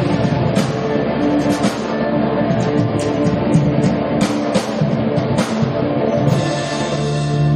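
Live band playing through a PA at a sound check: a drum kit with recurring cymbal and drum hits over sustained guitar notes.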